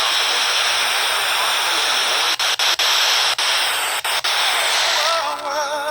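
Radio static: a loud, steady hiss from a weakly received station, broken every so often by brief dropouts. A wavering tone comes through the hiss about five seconds in.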